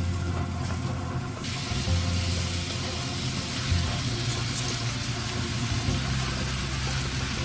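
Background music with a low bass line that changes note every second or two, over a steady hiss that starts about a second and a half in.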